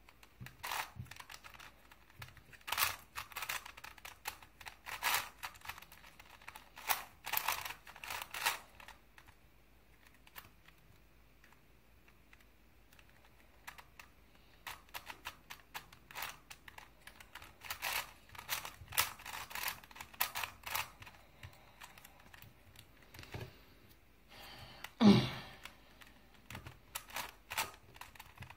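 Layers of a plastic Crazy 3x3 Plus Mars puzzle cube being turned by hand, giving bursts of quick clicking and clacking, with a few near-quiet seconds about a third of the way through. Near the end there is a single louder thump.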